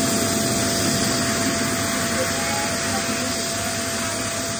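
Electric balloon pump running steadily as it inflates a latex balloon, a constant motor whine over a steady rush of air.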